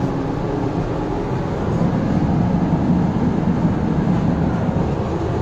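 KONE TMS passenger lift car in motion between floors: a steady low rumble inside the car, a little fuller in the middle of the ride.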